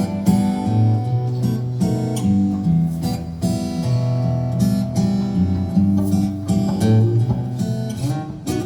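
Acoustic guitar playing a strummed chord pattern with a steady rhythm, the instrumental opening of a song.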